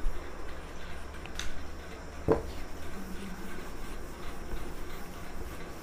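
Whiteboard being wiped clean: faint rubbing strokes against the board, with a sharp click about a second and a half in and a single knock a moment later.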